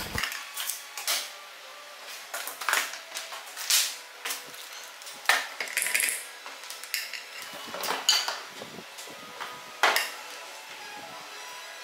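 Scattered clicks and knocks of handling: a plastic foot-pedal switch and heavy copper welding cables being moved and set down on a wooden workbench, at irregular intervals.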